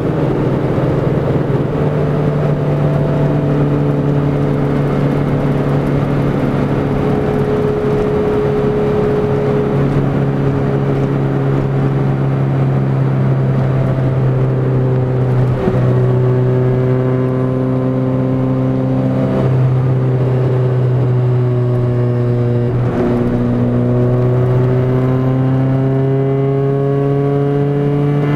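Honda B18C1 four-cylinder engine in a 1990 Civic hatchback with a 2-inch straight-pipe exhaust and no catalytic converter, heard from inside the cabin while cruising. It gives a loud, steady engine note with brief breaks about halfway through and twice more later, and the pitch climbs gradually over the last few seconds.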